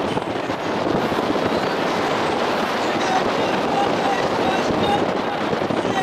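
Steady wind buffeting the microphone aboard a moving boat, over the rush of water and the boat's drone.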